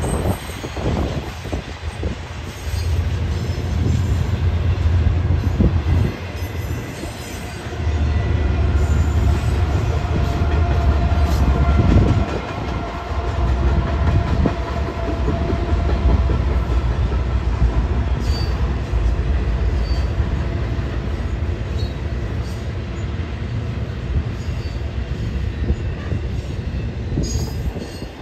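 Train passing: the heavy low rumble of diesel locomotive engines with wheels running on the rails. It grows louder about three seconds in and again about eight seconds in, and is loudest around ten to twelve seconds in.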